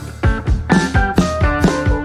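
Background music with drums and plucked, guitar-like notes at a quick, steady beat.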